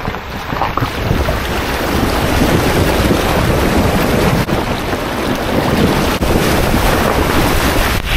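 Water churning and splashing around an AWD vehicle's tyre as it drives through a shallow river crossing, a loud steady rushing noise.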